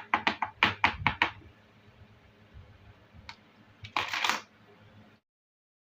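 Small plastic miniature toy kitchen pieces clicking and clattering against each other: a quick run of about eight sharp clicks at the start, a single click past the middle, and a short clatter near the end.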